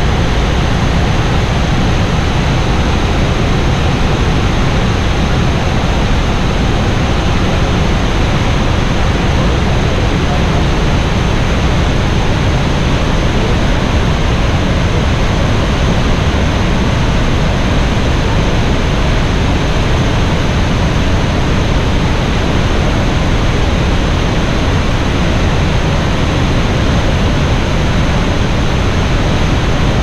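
Loud, steady rush of falling water from Iguazu Falls, an unbroken wash of noise with no let-up.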